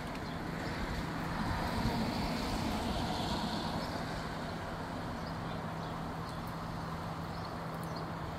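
Steady street-traffic noise with a constant low hum, swelling as a vehicle passes about two to three seconds in.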